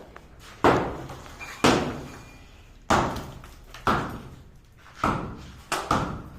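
Heavy crashing thuds of teak timber being knocked apart in house demolition, about one a second. Each sharp hit fades over most of a second.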